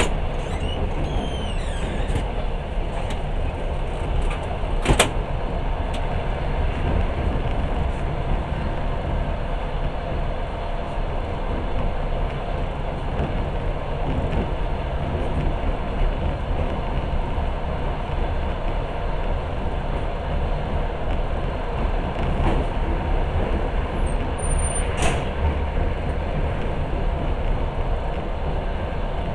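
Passenger train running at speed, a steady rumble and rattle of the wheels on the rails heard from inside the carriage, with a sharp click about five seconds in and another near the end.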